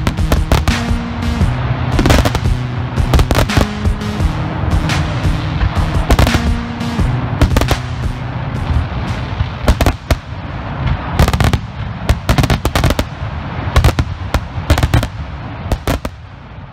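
Brothers Fireworks 200 gram cake firing its crackle finale: a rapid run of sharp reports and crackling that dies away near the end. Background music plays under the first half and then stops.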